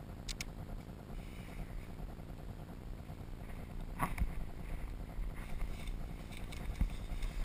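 Low, steady rumble of wind and handling noise on the microphone. There are two sharp clicks just after the start and a knock about four seconds in.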